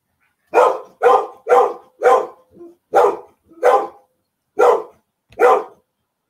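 A dog barking, eight loud barks in about five seconds with a softer one among them. The owner says the dog is terrified of the thunder.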